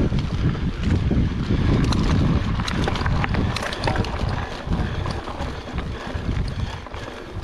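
Wind buffeting the microphone of a riding mountain bike, with its tyres rolling over a dirt and gravel trail and many short clicks and rattles as the bike goes over bumps.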